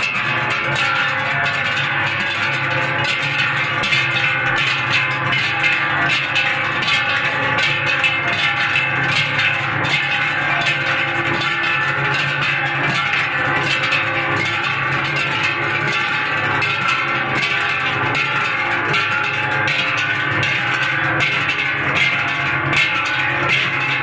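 Many large handheld cowbells shaken together, a continuous dense clanging of overlapping bells.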